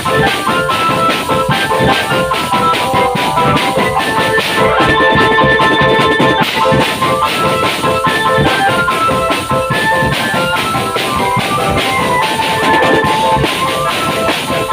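Drum band playing: a steady, dense drum beat under a melody of held notes that step up and down in pitch.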